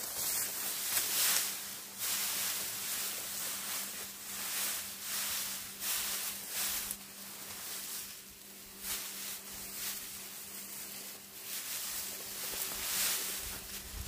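Dry cut rice straw rustling and crackling in irregular bursts as gloved hands gather and press the stalks into a pile. A faint steady hum runs beneath it.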